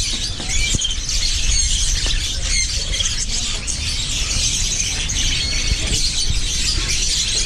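Many caged lovebirds chattering together, a dense stream of short, high squawks and chirps over a steady low background rumble.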